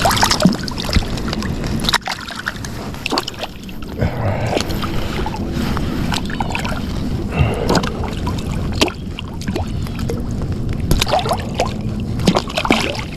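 Water sloshing and splashing close around a float tube, with irregular knocks and clicks of handling as a freshly landed channel catfish is dealt with.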